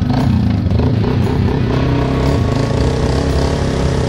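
Quad ATV engine running loud and close at a fairly steady throttle.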